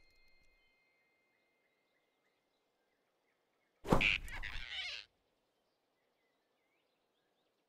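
Animated-film grab sound effect as the big rabbit snatches the flying squirrel: a single sudden loud burst about four seconds in, lasting about a second, with near silence on either side.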